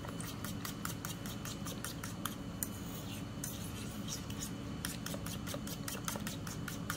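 Fork whisking egg omelette batter in a bowl: a quick run of clicks, several a second, as the tines knock against the bowl, with a wet slosh of the beaten eggs.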